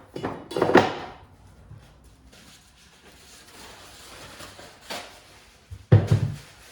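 Workbench handling noises from driveshaft parts being moved and set down: a loud clatter under a second in and another near the end, with quiet scraping and rustling between.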